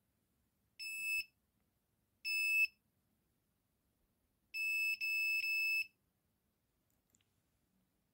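A homemade metal detector's buzzer beeping a steady high tone: two short beeps about a second apart, then a longer beep of about a second and a half, as a steel screwdriver is passed over its search coil, the detector signalling metal.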